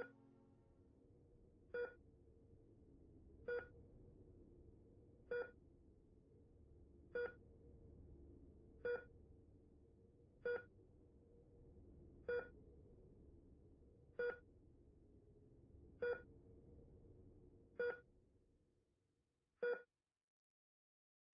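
Patient heart monitor beeping at a steady slow rate, a single pitched beep about every two seconds. A faint low background under it fades out near the end.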